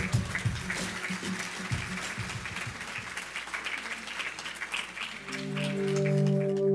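Audience applauding, with the end of a pop song fading underneath. About five seconds in the clapping gives way to a steady, sustained synthesizer pad.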